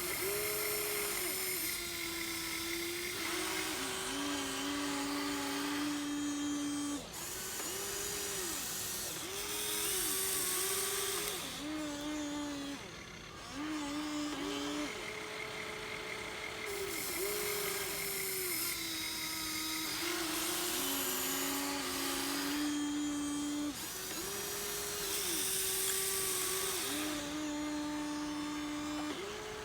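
Huina 1593 RC excavator's small electric motors and gearboxes whining as it works, starting and stopping in turns every second or few. The pitch steps up and down as different motions run and take load.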